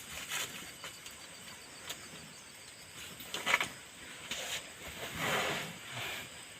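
Cow chewing durian seeds, with irregular crunches; the sharpest comes about three and a half seconds in and a longer rough grinding follows near the end.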